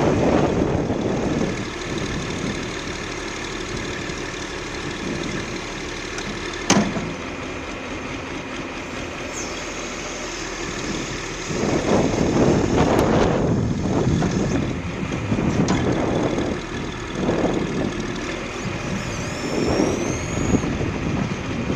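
Diesel engine of a 1996 John Deere 710D backhoe loader running steadily, surging louder several times, most strongly about twelve seconds in. A sharp knock comes about seven seconds in.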